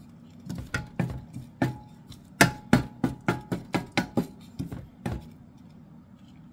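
Wooden spatula knocking and scraping against a stainless steel skillet while stirring rehydrated ground beef and cabbage, about fifteen quick strokes over four seconds, some with a faint metallic ring, then the stirring stops.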